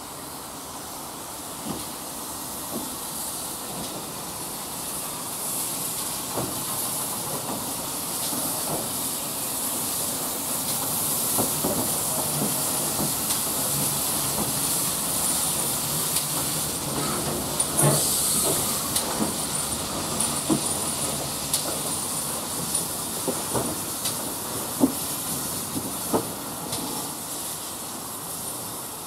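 GWR 64XX class 0-6-0 pannier tank locomotive No. 6430 passing slowly on its own, hissing steam, with scattered clicks and knocks from its wheels and motion. It grows louder as it goes by and then fades.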